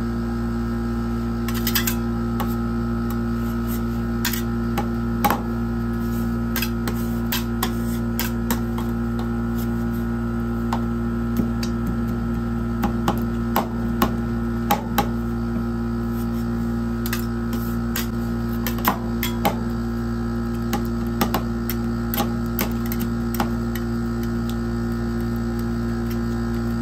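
Rolled-ice-cream cold plate machine humming steadily, while metal spatulas tap, chop and scrape on the steel plate, breaking marshmallows into the liquid ice cream base. The spatula strikes come as sharp, irregular clicks, in quick clusters at times.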